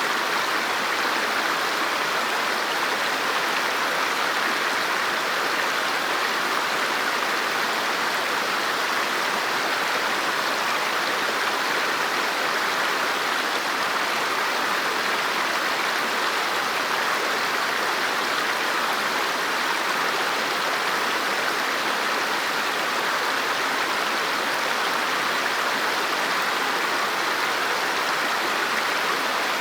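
River water flowing steadily over rocks, an even rushing and babbling.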